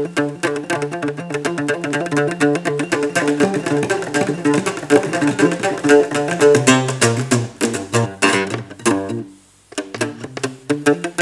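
Solo plucked lute played with a pick: a quick, flowing melody of picked notes over lower repeated notes, stopping briefly about nine seconds in before the playing resumes.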